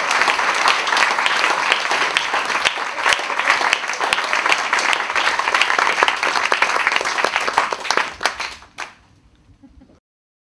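Audience applauding after a song, many hands clapping in a dense patter that thins out and stops about eight and a half seconds in.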